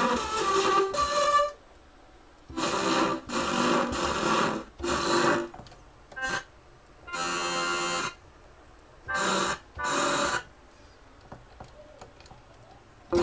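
Electronic keyboard giving out short bursts of weird synthesized sounds, about eight of them in a row, each lasting under a second, with silent gaps in between.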